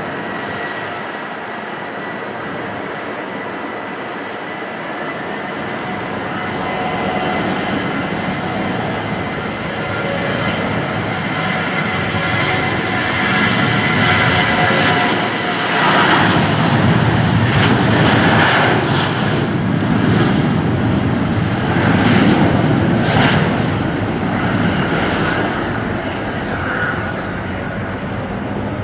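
Airbus A320's twin jet engines at takeoff thrust during the takeoff roll. A steady whine at first gives way to a growing rumble that is loudest about two-thirds of the way in as the airliner runs past, then eases a little as it lifts off near the end.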